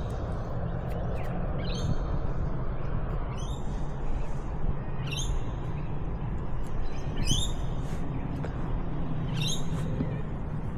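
A bird calling repeatedly: five short, high calls about two seconds apart, each sliding in pitch, over a steady low rumble.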